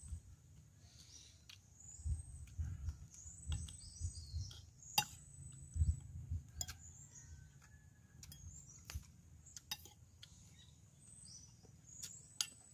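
Spoon and fork clinking now and then against plates and a bowl during a meal, with soft low thumps between the clicks. Faint bird chirps sound in the background.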